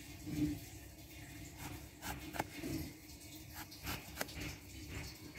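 An eggplant being peeled against a boti's fixed upright blade: a series of short, sharp scraping cuts through the skin, a few seconds apart, over a faint steady hum.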